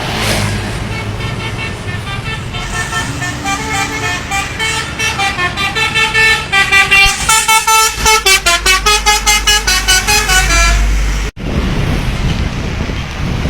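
Indonesian 'telolet' bus horn, a multi-tone musical air horn, playing a melody of held notes that step up and down, then fast repeated toots at about four a second, over a bus engine. It cuts off abruptly about eleven seconds in, leaving engine and street noise.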